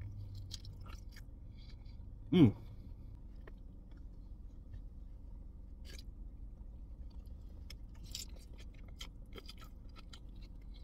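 Soft chewing of a Korean dumpling (mandu) with the mouth close to the microphone: small wet mouth clicks and smacks. A brief vocal sound breaks in about two and a half seconds in, over a low steady hum.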